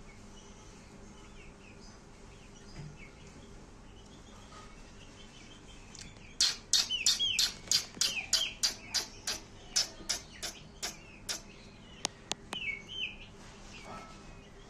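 Aseel chicks peeping in short downward-gliding peeps. Through the middle comes a run of loud, sharp taps, about three a second, with peeps between them, and then three quick clicks.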